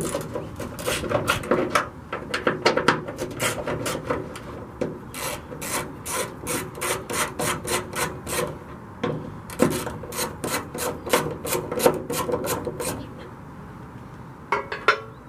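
Socket ratchet clicking in rapid runs as bolts on the underside of a hood are loosened, several clicks a second with short pauses. The clicking stops about two seconds before the end, and a few clicks follow near the end.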